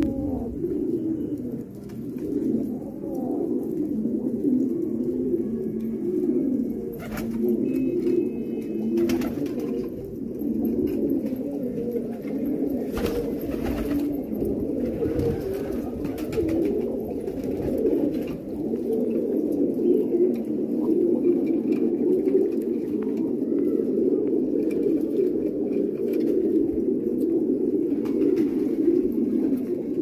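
A flock of fancy domestic pigeons cooing continuously, many low coos overlapping into a steady warbling murmur, with a few short clicks now and then.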